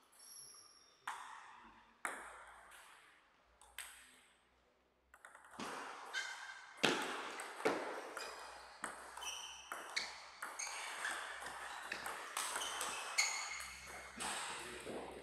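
Table tennis ball: a few single taps in the first few seconds, then from about five seconds in a fast rally of sharp ball hits on bats and table with short ringing pings, which stops near the end.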